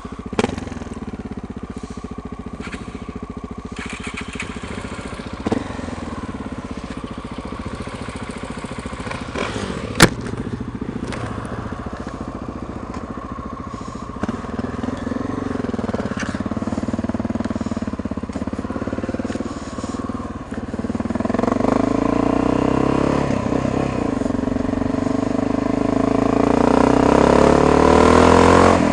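Honda XR650 single-cylinder engine idling steadily, with one sharp click about ten seconds in. About two-thirds of the way through it revs and grows louder as the bike pulls away and accelerates.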